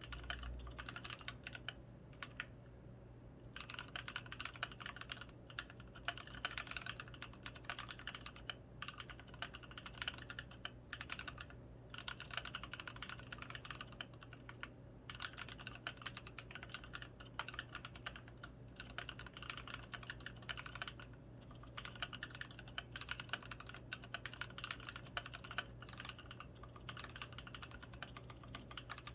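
Typing on an XO V3 mechanical keyboard with Krytox 105-lubed Kailh Polia tactile switches and pudding keycaps: a fast, continuous stream of keystrokes broken by a few short pauses.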